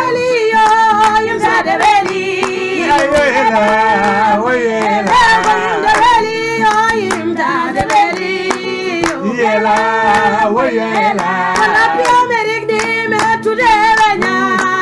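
A woman singing an ornamented, wavering melody over held accompaniment notes, with hand claps keeping time.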